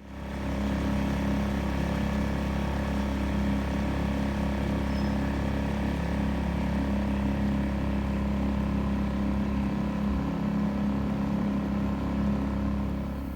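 An engine running steadily at an even pitch, with a low rumble. It fades in at the start and fades out at the end.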